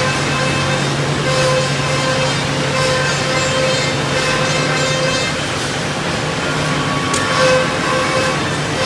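Three-head CNC mortising machine running: a steady motor hum with a whine, and short hissing bursts recurring about every one and a half seconds.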